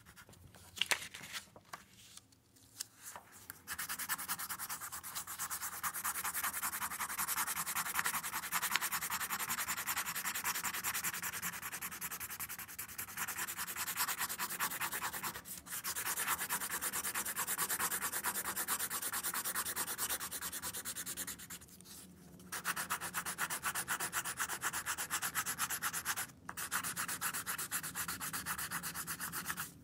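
Pencil scribbling hard and fast over the back of a sheet of sketch paper lying on a wooden block, a dense rapid scratching of many back-and-forth strokes a second, the graphite being pressed through to transfer the drawing onto the block. It starts a few seconds in after some light taps, and stops briefly a few times, longest about three-quarters of the way through.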